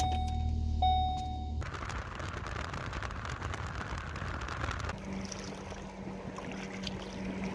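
A car engine running just after being started with the key, with two short electronic beeps. Then steady road noise while driving, and after that a steady low motor hum.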